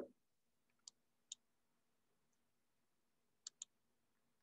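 Near silence broken by four faint, short computer clicks: two spaced out about a second in and a quick pair near the end, as a presentation slide is advanced.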